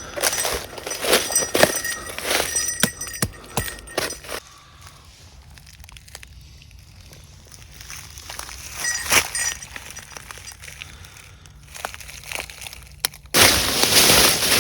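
Footsteps crunching and snapping through dry leaves and twigs, with small clinks. The steps go quiet for several seconds in the middle, return briefly, and near the end a louder, steady rustling noise starts abruptly.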